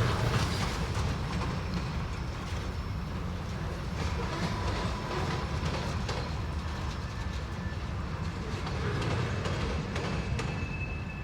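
Freight train wagons rolling past, a steady low rumble of wheels on rails with scattered faint knocks.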